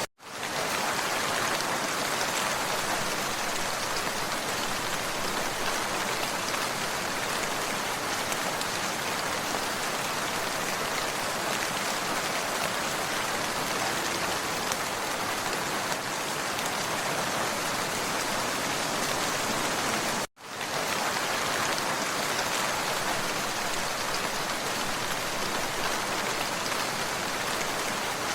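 Steady, even rain falling, with two brief drop-outs to silence: one right at the start and one about 20 seconds in.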